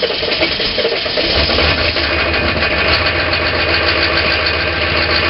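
GM 6.5-litre turbo-diesel V8 of a 3/4-ton Chevy Suburban cranking on a very cold start, catching about a second and a half in and settling into a rough, clattering cold idle. It is a cold-soaked start without the block heater plugged in, and the engine is not happy about it.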